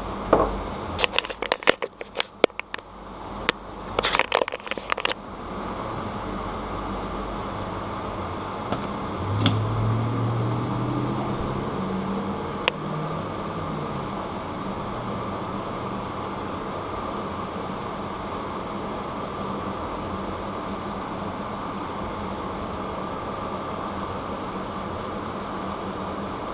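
Metal bicycle parts clicking and knocking as a cassette and its new 44-tooth cog are handled and pressed together, with a brief rising creak about ten seconds in. A steady low hum runs underneath.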